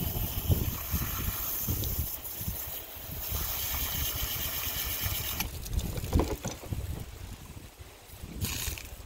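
Garden hose spray nozzle spraying water over a plucked chicken carcass in three spurts: about two seconds at the start, another two seconds from about three seconds in, and a brief squirt near the end. Wind rumbles on the microphone underneath.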